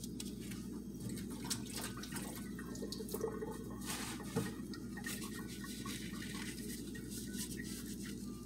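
Dried corn husks rustling and crackling as they are handled and pulled out of a glass dish, with a few sharper crackles about one and a half, three and four and a half seconds in, over a steady low hum.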